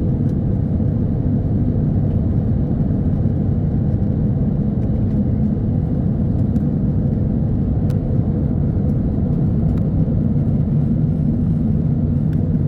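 Steady low rumble of a jet airliner's cabin in flight: engine and airflow noise with no change in level.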